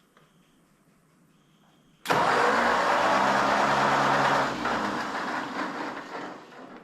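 A motor-driven machine switches on abruptly, runs loud and steady for a couple of seconds, then is switched off and winds down, fading out over about two seconds.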